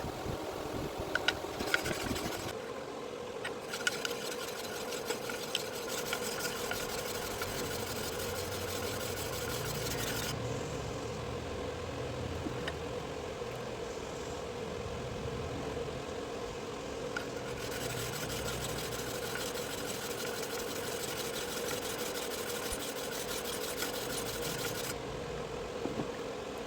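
Motor-driven sharpening grinder running with a steady hum, with a few sharp clicks in the first seconds. A high hiss over the hum switches on and off abruptly several times.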